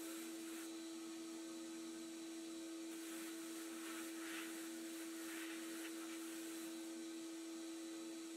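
Abrasive blast cabinet stripping old paint from a pressed-steel toy car body. A steady droning hum runs under an air-blast hiss that cuts in and out several times, with brief stronger hisses about four and five and a half seconds in.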